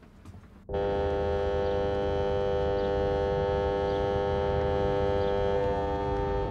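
A boat horn sounding one long, steady blast that starts abruptly about a second in, over a low rumble.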